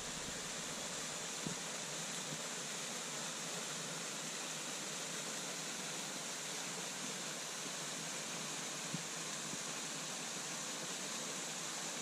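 Steady rushing of a waterfall pouring into a pool, an even hiss with no break.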